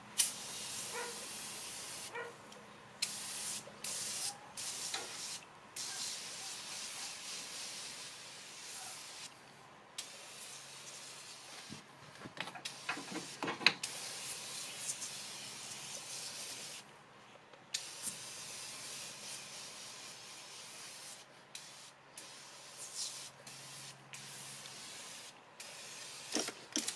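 Aerosol cleaner hissing out of a spray can in a long series of bursts, some short and some a few seconds long, with brief breaks between them.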